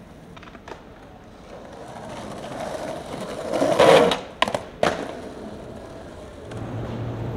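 Skateboard wheels rolling on pavement, growing louder as the board runs onto a metal plate, then several sharp clacks of the board hitting the ground. A low steady hum comes in near the end.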